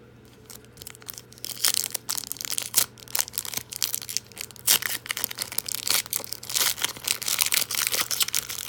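Foil trading-card pack wrapper being torn open and crinkled by hand: a dense run of crackles that starts about a second in.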